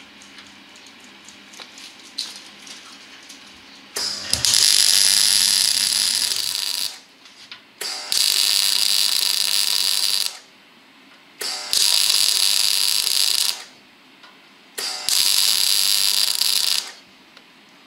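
MIG welder arcing on steel, welding an outrigger to the chassis rail: four runs of steady crackling hiss, each about two to three seconds long, with short pauses between. Before the first run there is only a faint hum and a few light ticks.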